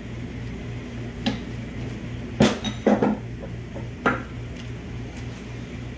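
Steel parts of a 6L80 transmission's rear Ravigneaux planetary gearset clinking and knocking together as they are lifted apart by hand: a few sharp metallic clanks, the loudest about two and a half seconds in.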